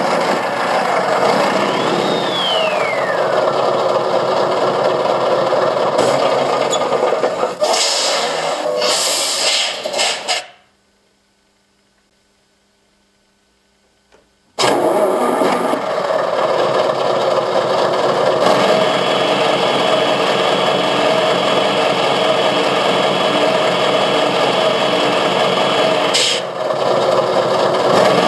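Servonaut SM7 sound module playing a simulated RC truck engine through a loudspeaker. The engine runs with a falling whistle about two seconds in and short bursts of hiss a few seconds later, then cuts off to silence for about four seconds before starting again and running on with a steady high whine and another brief hiss near the end.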